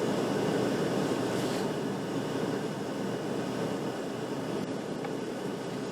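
Steady low rumble of a vehicle running, heard from inside the cab.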